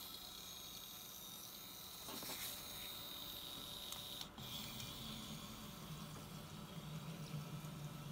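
Small electric motor of a Faller Car System model car whirring faintly, with a click about two seconds in. After a break about four seconds in, it gives way to a lower steady hum that grows louder toward the end.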